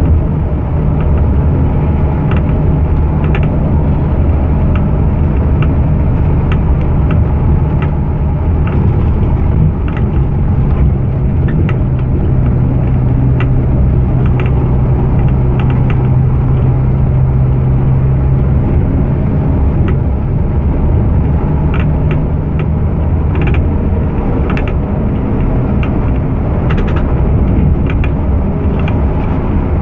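Bus diesel engine running steadily under way, heard from inside the cabin as a continuous low drone, with frequent light rattling clicks throughout.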